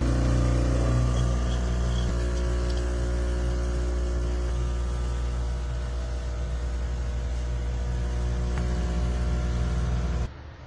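De'Longhi Stilosa espresso machine's vibratory pump running with a steady buzzing hum for about ten seconds, switching on and cutting off abruptly.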